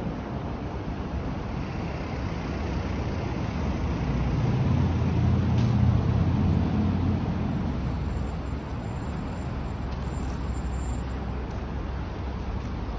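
A motor vehicle drives past on the street: a low engine and tyre rumble swells about four seconds in, peaks, and fades away by about eight seconds, over steady background traffic noise.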